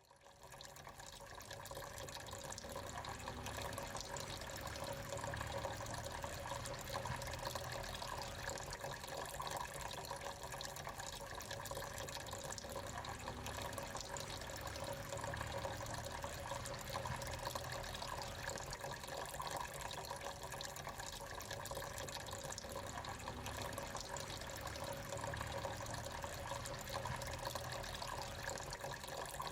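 Water from a small tabletop fountain, fed by a submersible pump, trickling and splashing steadily. It fades in over the first couple of seconds.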